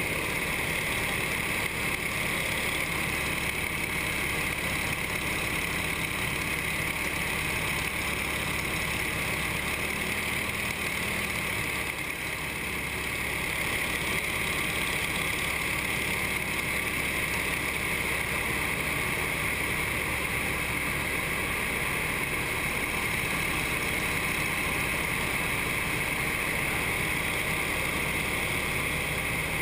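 Nine-cylinder radial engine of a propeller trainer aircraft running steadily in flight, heard from inside the cockpit together with propeller and wind noise. The level dips briefly about twelve seconds in, then picks back up.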